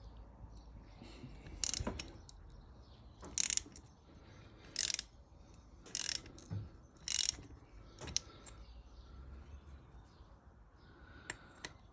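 Hand ratchet clicking in short bursts, about six strokes a second or so apart, as it works two nuts locked together on a snapped exhaust manifold stud to try to back the stud out.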